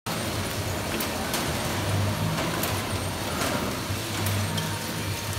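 Packaging line machinery running, with a flow wrapper in operation: a steady mechanical hiss, a low hum that swells and fades every couple of seconds, and sharp clicks at irregular intervals.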